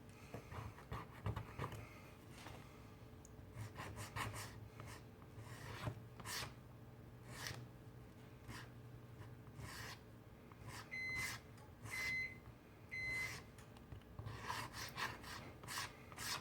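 Short, irregular scratchy strokes of a brush scrubbing solvent-softened adhesive on a phone's frame. Three short electronic beeps about a second apart sound past the middle.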